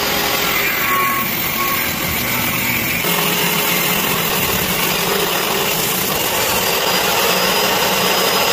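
DeWalt jobsite table saw running, its blade ripping a softwood board lengthwise along the fence: a steady motor whine under the rasp of the cut.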